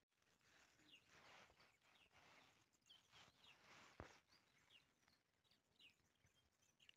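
Very faint outdoor ambience: a small bird chirping, short high notes sliding downward every second or so, over a soft rushing noise, with a single sharp click about four seconds in.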